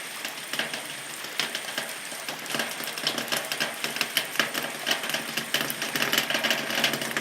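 Rain falling on a zinc sheet-metal roof: a dense, irregular run of sharp drop impacts that thickens and grows a little louder about a third of the way in.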